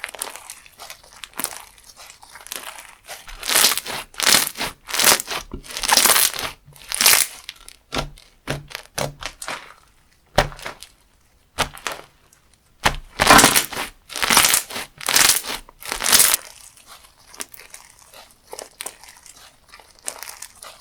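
Hands squeezing and pressing a crunchy textured slime, giving bursts of crackling and crunching with quieter pauses between, and a few soft low thuds around the middle.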